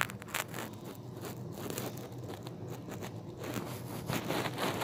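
Handling noise on a phone's microphone: irregular crackles and rustles as the phone is held and shifted against clothing.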